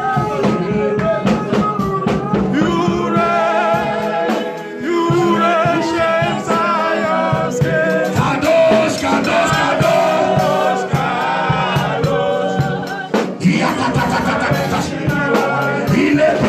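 Live gospel worship music: voices singing over a band with drums.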